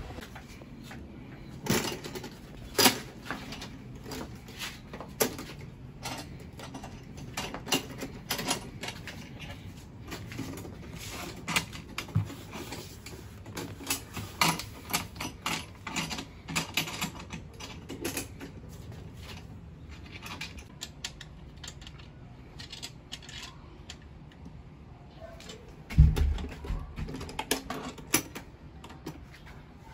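Scattered clicks and knocks of a motorcycle top box being handled and fitted onto its mounting bracket, with one heavy low thump near the end.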